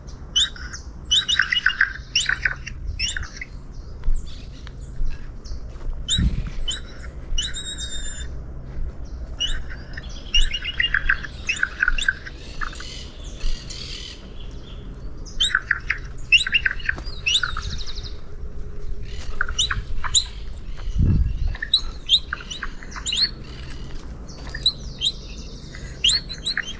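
Several birds calling, quick series of short high chirps overlapping throughout. Two dull low thumps come about six and twenty-one seconds in.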